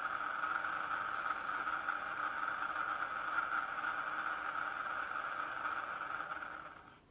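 Maybach diesel engine sound from an ESU LokSound 5 decoder in a Piko model of a DB class 216 locomotive, played through the model's small loudspeaker. It runs steadily, then dies away near the end.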